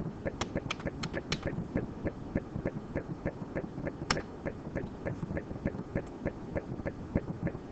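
Computer keyboard typing and mouse clicks: a run of light, sharp taps at about three a second, with one sharper click about four seconds in.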